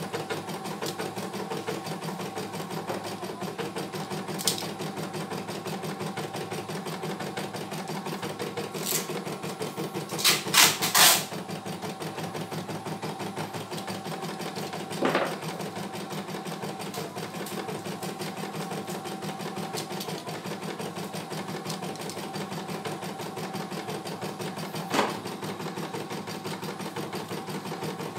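CNY E900 computerized embroidery machine stitching a design, a rapid steady run of needle strokes. A few sharp clicks punctuate it, the loudest three in quick succession about ten seconds in.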